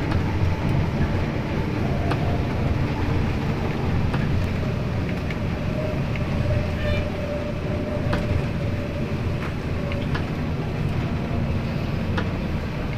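Steady low rumble of an intercity bus's engine and tyres on a wet highway, heard inside the cabin, with scattered light ticks.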